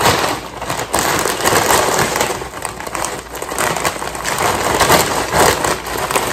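Plastic bag of Santitas tortilla chips crinkling as it is shaken, with the chips pouring out and clattering into a ceramic bowl in a dense, continuous crackle of small clicks.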